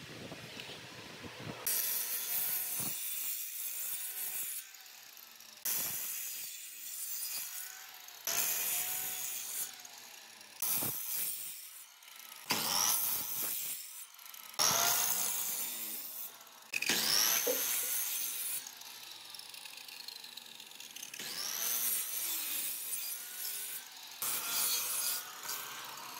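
Sliding miter saw making a series of shallow kerf cuts across a pine board, about nine short cuts of a second or two each with brief pauses between. The closely spaced kerfs are cut so the board can be bent into a curve.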